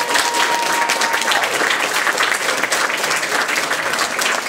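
A crowd of people applauding, many hands clapping together steadily.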